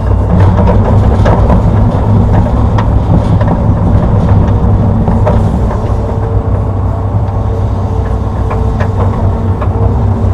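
Hitachi Zaxis 210-5G hydraulic excavator's diesel engine running steadily under working load, with scattered short clanks and knocks.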